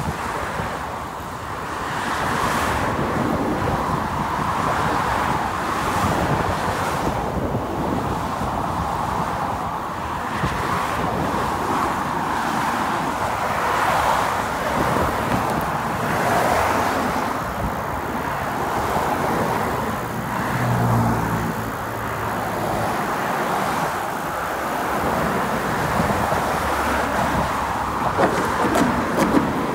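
Road traffic on a bridge: cars passing close by in a continuous stream of tyre and engine noise that swells and fades with each vehicle. About two-thirds of the way through, one passing vehicle adds a deeper engine hum.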